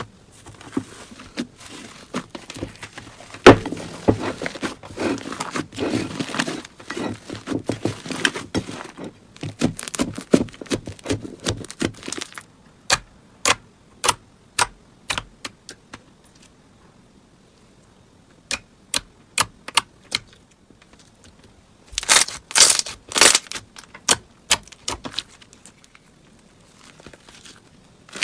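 Slime being handled: sticky crackling and sharp popping clicks that come in clusters with pauses between them, ending in a dense burst of crackling near the end.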